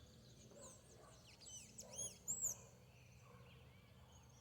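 Birds chirping faintly: a quick run of short, high, arched chirps, loudest about two seconds in, then fading out.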